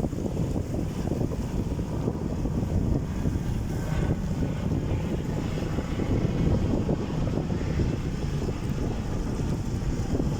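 Wind buffeting the microphone over the sea on a coast: a dense, steady low rumble with no breaks.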